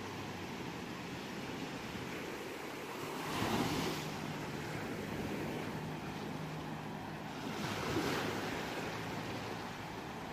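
Ocean waves washing onto a shore, a steady rush with two waves breaking louder, about three and a half seconds in and again about eight seconds in.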